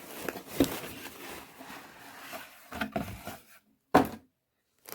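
Cardboard box being opened by hand: flaps rustling and scraping, with a few knocks, the sharpest about four seconds in, after which the sound cuts off suddenly.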